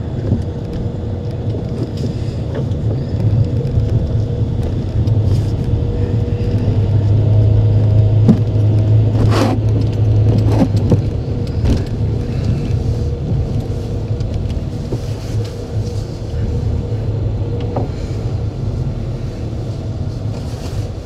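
Car engine and road noise heard from inside the cabin while driving: a steady low drone that swells for a few seconds about a third of the way in, then eases. A few short knocks come around the middle.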